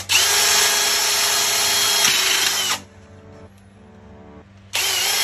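Cordless drill running at full speed as it bores screw holes through a Tesla Wall Connector's mounting bracket: one run of nearly three seconds, a pause, then a second run starting near the end.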